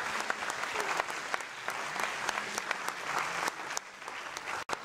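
Audience applauding: many hands clapping, thinning out near the end.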